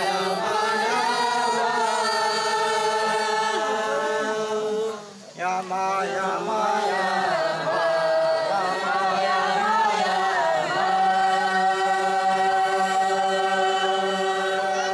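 A traditional Noke Koi chant sung in long, drawn-out held notes over a steady low tone, breaking off briefly about five seconds in and then going on.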